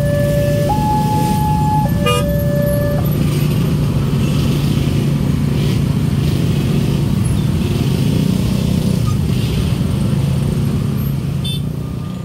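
Electronic two-tone warning alarm of a WANTECH railway level-crossing signal, alternating between a low and a high tone about once a second, which cuts off about three seconds in as the crossing clears. Under it, and on alone afterwards, the engines of a crowd of waiting motorcycles run steadily.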